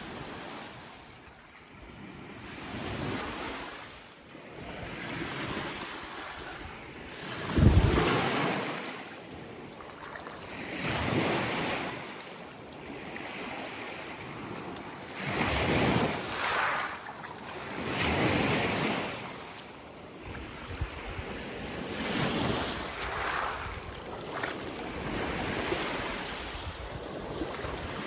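Lake Superior waves breaking and washing up a rocky beach, swelling and fading every few seconds, with wind rumbling on the microphone.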